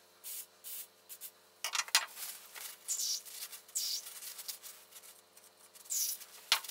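Short hisses from an aerosol spray can, mixed with a paper towel rubbing, in a quick string of separate bursts. The audio is played back at four times speed.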